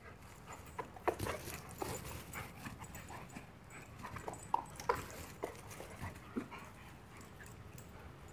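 Pit bull leaping and lunging, giving short whines and pants, among scattered sharp clicks and knocks.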